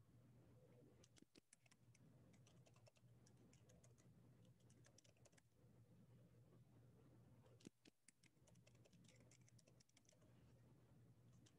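Faint typing on a computer keyboard: two runs of quick key clicks, one early and one in the second half, over a low steady hum.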